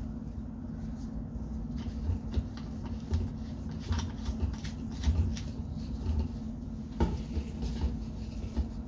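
Light clicks and knocks of glass reagent bottles and a plastic pipette being handled on a lab bench, a few seconds apart, over a steady low hum.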